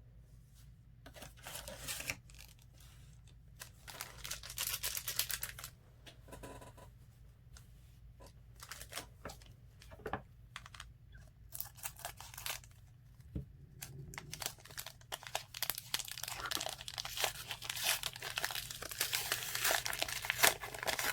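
Wrapper of a Panini Illusions basketball card pack being torn open and crinkled, in several bursts, busiest over the last few seconds.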